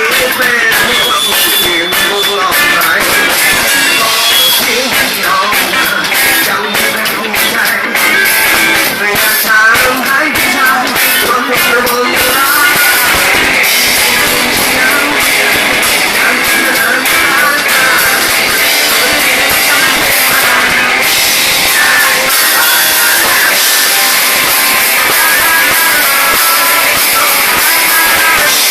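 A rock band playing loud, with electric guitar and drums. The sound gets fuller and denser about halfway through.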